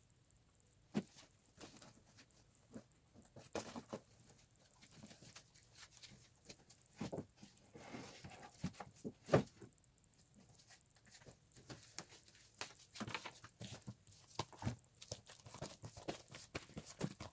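Items being handled and set down on a desk: irregular light knocks and taps with some rustling, one louder knock about halfway through.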